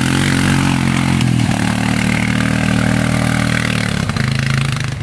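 ATV engine running under load as the quad climbs a steep dirt trail, its pitch shifting a couple of times with the throttle, over a hiss of tyres in dirt and leaves.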